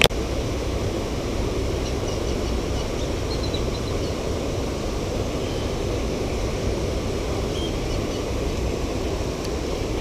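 Small waterfalls spilling over stone ledges into a river pool: a steady rushing of water.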